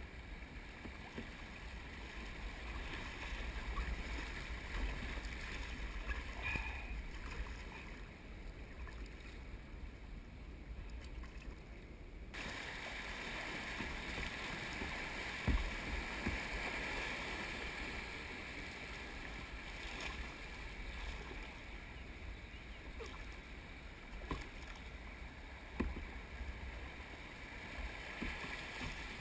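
Rushing river water splashing around a kayak as it runs shallow rapids, a steady rush with a few knocks.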